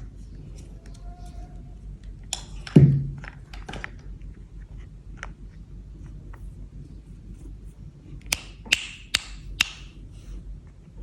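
Small plastic toy pieces being handled and set down: a thunk about three seconds in, light ticks, then four sharp clicks in quick succession near the end.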